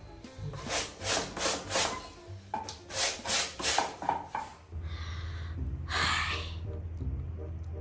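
Rhythmic scraping or rubbing strokes, about three a second in two short runs. From just under five seconds in, background music with a steady low hum takes over, with a brief hiss about six seconds in.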